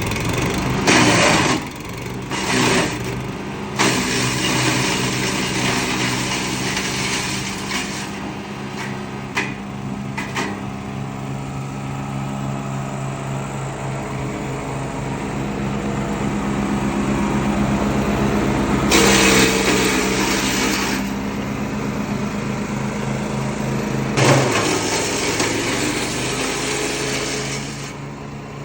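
Gaja 15 HP woodchipper running, its engine giving a steady hum throughout, with repeated bursts of harsher grinding noise as material is fed in and chipped: short ones in the first few seconds, a longer stretch soon after, and two more later on.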